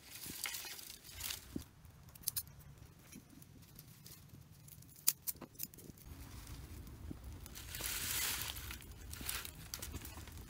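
Twig-and-leaf fire catching alight: scattered sharp crackles and pops from burning dry sticks, with a rushing hiss near the start and again about three-quarters through as the flames flare up.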